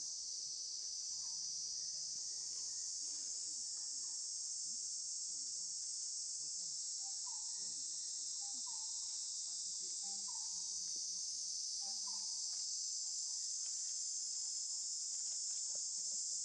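Steady, high-pitched insect chorus of crickets or cicadas, with faint short chirps repeating every second or so in the middle.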